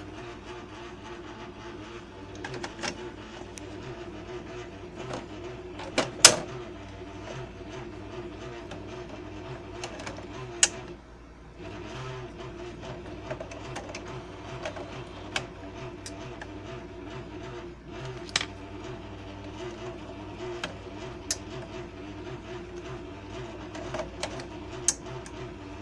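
Sharp plastic clicks and snaps as ink cartridges are handled and pushed into the printhead of an HP Officejet printer, about seven of them a few seconds apart, the loudest a double snap about six seconds in. They sit over a steady low hum.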